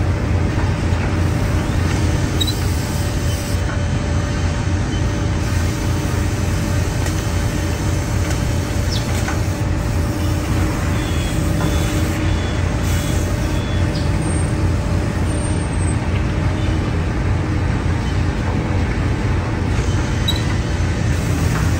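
Six-sided CNC drilling machine running in a wood-panel workshop: a steady, loud mechanical hum and rumble with a faint held tone, broken now and then by short hisses and light ticks.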